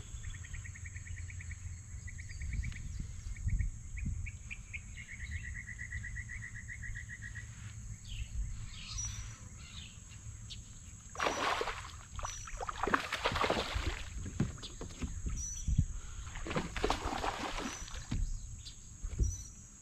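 A hooked fish thrashing and splashing at the surface beside a kayak in several loud bursts during the second half. Earlier, a bird gives a fast, even trill of short notes.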